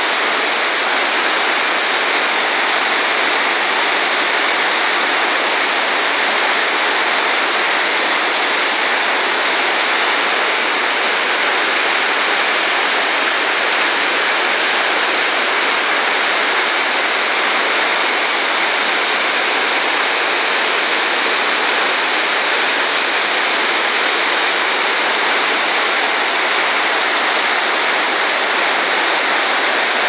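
Bistrica waterfall cascading over boulders: a loud, steady rush of falling white water that never lets up.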